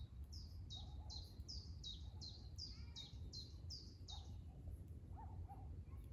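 A songbird singing a quick run of about eleven high notes, each sliding downward, at a bit under three a second, stopping about four seconds in; a couple of faint lower chirps follow near the end.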